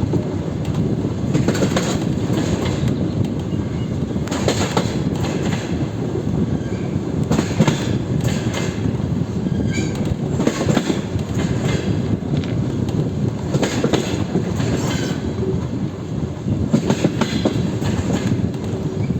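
DR1Am diesel multiple unit under way, its wheels clacking over rail joints: sharp knocks, often in quick pairs, every second or few over a steady running rumble.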